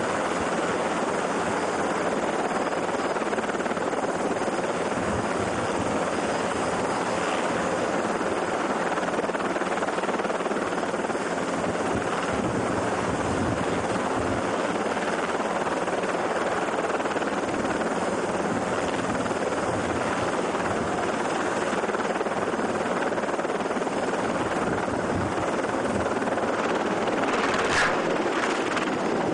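Helicopter running on a ship's helideck: a steady, dense rush of rotor and engine noise. A short, sharp noise stands out near the end.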